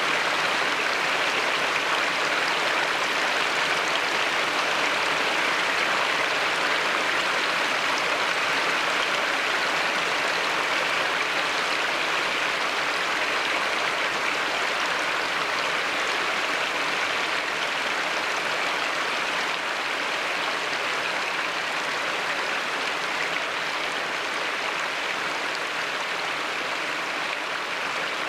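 Water spilling over a low, three-tier rock cascade on a river, each ledge a 2–5 foot drop, at a modest late-autumn flow: a steady rushing and splashing.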